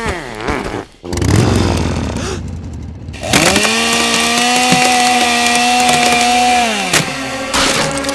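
Gas chainsaw revving: a rough burst, then the engine is held at high revs in a steady whine for about three and a half seconds before it drops off. A short burst of revving follows near the end.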